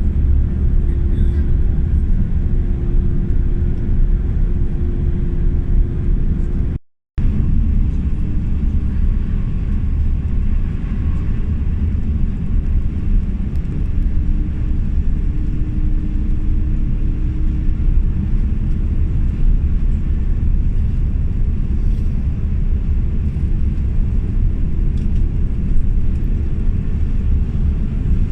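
Inside a tour bus on the move: a steady low engine and road rumble. The sound cuts out completely for a moment about seven seconds in.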